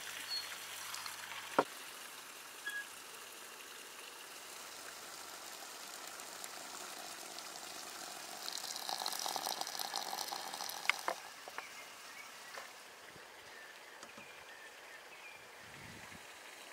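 Water from a samovar's tap pouring in a splashing stream into a glass teapot of herbs, for about two and a half seconds, ending with a click. Near the start there is a sharp click of dried rosehips dropping into the empty glass pot.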